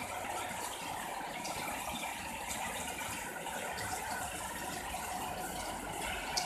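Heavy rain pouring steadily, with scattered sharp ticks of drops striking something and one louder tick near the end.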